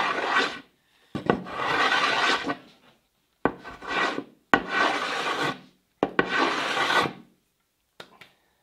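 Hand plane cutting across a white oak tabletop through its old finish. There are about five rasping strokes of roughly a second each, each starting with a sharp knock as the plane lands, with short pauses between, and a faint last touch near the end.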